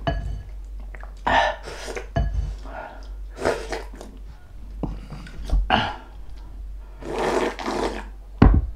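A person slurping soup from a wooden spoon in several loud slurps about a second apart, then sipping straight from the bowl, with a sharp low thump near the end.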